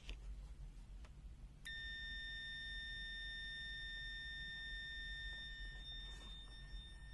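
A multimeter's continuity buzzer sounding one steady, high-pitched beep. It starts about a second and a half in and holds, dropping a little in strength near the end, as the probes make contact in continuity mode.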